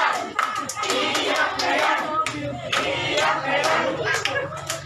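A small group of people shouting and cheering together, with scattered hand claps.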